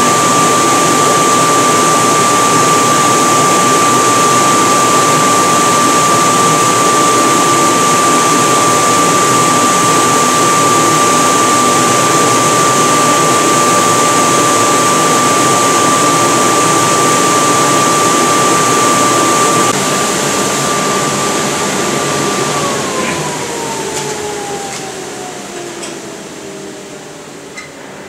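A forge's electric air blower running, a steady loud rush of air with a high whine. About twenty seconds in the rush drops, and then the whine falls steadily in pitch and fades as the blower winds down.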